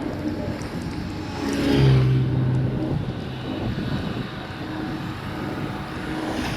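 A motor vehicle's engine, swelling to its loudest about two seconds in and then easing off, over a steady rush of outdoor noise.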